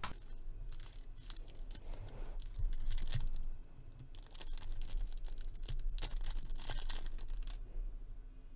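Trading-card pack wrapper crinkling and tearing while cards are handled and slid against each other, in crackly bursts about two and a half seconds in and again from about five to seven and a half seconds.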